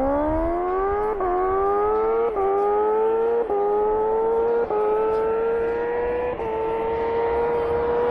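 Kawasaki Ninja H2R's supercharged inline-four engine accelerating hard up through the gears. The pitch climbs and dips briefly at five quick upshifts, about a second apart at first and further apart later, then holds a high, slowly rising note.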